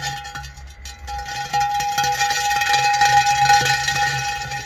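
Parkside PKBM 1800 A1 core drill running with its diamond core bit pressed on a concrete slab: a steady metallic ringing tone over the motor hum, with rapid chattering as the bit skates on the surface instead of biting in, the difficulty of starting a core hole by hand without a guide stand. It gets louder about a second and a half in.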